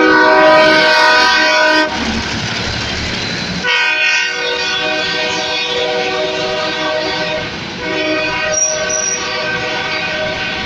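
Nathan K3LA three-chime air horn on an EMD SW1505 switcher locomotive, sounded in long chord blasts as a horn show. One blast ends about two seconds in, and a short stretch of train rumble and wheel clatter follows. Then two more long blasts come, the second starting about eight seconds in.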